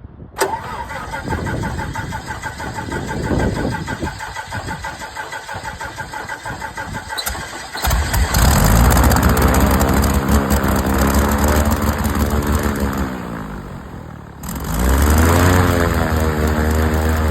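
Piper Lance's piston aircraft engine cranking on the starter for several seconds before it catches and runs: a hard start. Once running, its speed sags and falls off, then picks up again near the end.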